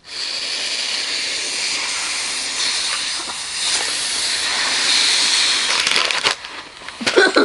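A man blowing hard through a plastic straw into a toy's bag to inflate it: a long, steady airy hiss of breath that dips briefly about three seconds in and stops about six seconds in.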